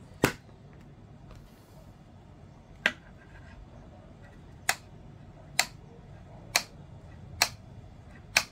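Seven sharp plastic clicks, spaced irregularly and coming about once a second in the second half: an electric scooter's thumb throttle lever being pressed and let go, snapping back against its stop now that its return spring is re-engaged.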